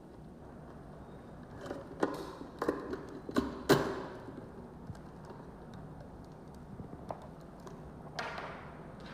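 Small lock parts being handled and fitted: a cluster of clicks and knocks about two to four seconds in, the loudest near four seconds, then a short scrape near the end.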